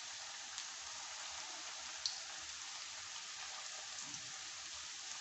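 Oil sizzling steadily as gulab jamun dough balls deep-fry in a pan, with occasional small pops, the sharpest about two seconds in.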